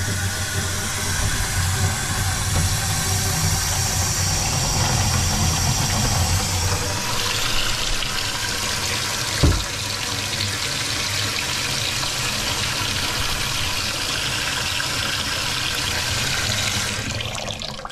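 Kitchen tap running at full flow into a stainless steel sink bowl, testing a slow-draining sink. The splashing changes about seven seconds in as water pools in the bowl. A single thump comes about halfway through, and the tap is turned off near the end.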